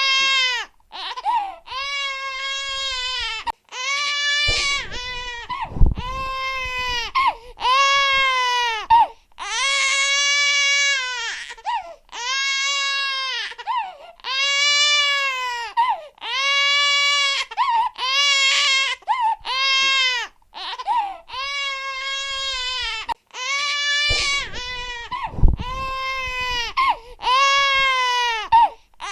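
Infant crying hard: a steady run of high-pitched wails, each rising and falling over about one to two seconds, broken by short gasps for breath. Two sharp low thumps sound about six seconds in and again near twenty-five seconds.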